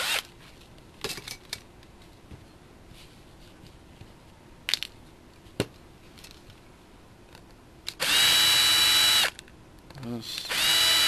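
Craftsman cordless drill/driver backing screws out of an RC buggy's motor plate: a short blip at the start, then two runs of steady high whine, the first about a second long, the second coming after a brief slow speed-up near the end. In between, a few light clicks of small metal parts being handled.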